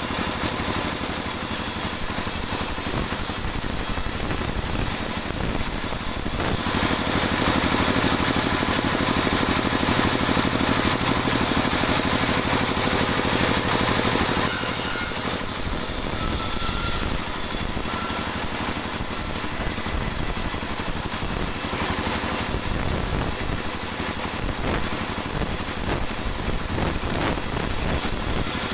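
Band sawmill running steadily, its band blade ripping dry teak offcuts into 2 cm boards. The sound changes for several seconds in the middle as a cut goes through.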